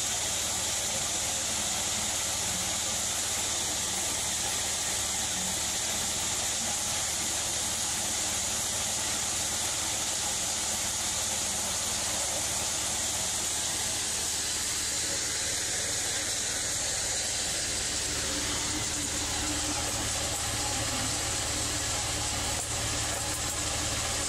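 A 24 by 16 HD hammer mill and its discharge conveyor running steadily while grinding spent shotgun shells, knocking the brass bases off the plastic hulls. It makes a constant high hiss over a low drone, with a few sharp ticks near the end.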